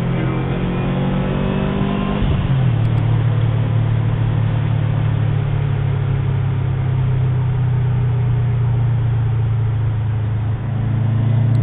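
Turbocharged flat-four of a 2009 Subaru Impreza WRX with a Subaru SPT dual-muffler exhaust, heard from inside the cabin: the engine note climbs in pitch under acceleration for about two seconds, drops sharply, then settles into a steady low drone at freeway speed.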